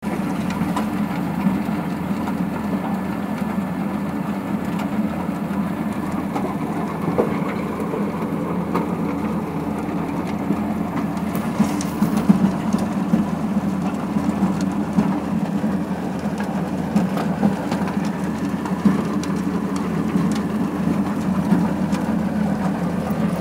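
Fendt 818 tractor's six-cylinder diesel running steadily under load, driving a Dondi rotary ditcher as its rotor cuts a trench and flings out soil. Scattered sharp clicks and knocks run through it, a cluster of them about halfway through.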